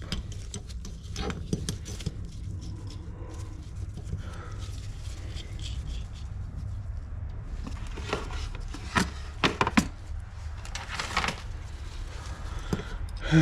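Grinder dog and workpiece being handled and fitted together: scattered light clicks and clinks of metal parts, with a few sharper knocks between about eight and eleven seconds in, over a steady low hum.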